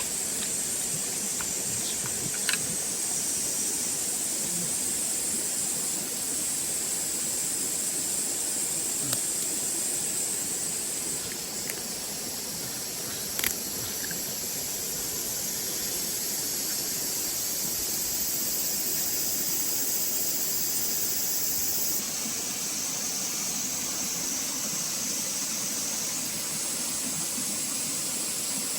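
Steady outdoor hiss with a high-pitched insect drone, and a few sharp pops from the bonfire.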